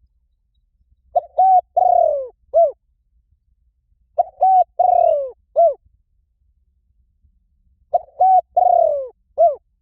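Spotted dove cooing: three phrases about every three and a half seconds, each of two short coos, a longer coo that falls in pitch, and a short final coo.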